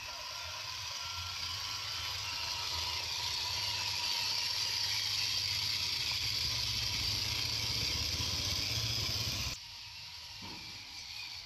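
1/10-scale RC crawler's electric motor and gearbox whirring as it drives, over a steady high hiss. The low drone builds and then cuts off suddenly about nine and a half seconds in.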